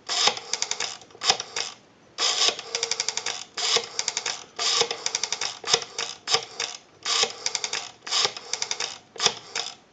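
Rotary dial of a Western Electric 202 desk telephone dialing out a number. Trains of rapid clicks, about ten a second, come one group per digit, with short pauses while the dial is wound for the next digit.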